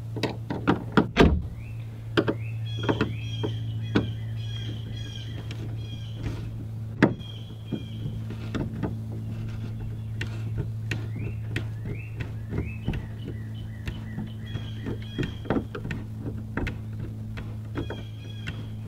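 A Phillips screwdriver and a wrench taking out the screw and nut that hold a wooden canoe thwart to the gunwale: metal tools clicking and knocking against the hardware, with repeated short high squeaks as the screw is turned. A steady low hum runs underneath.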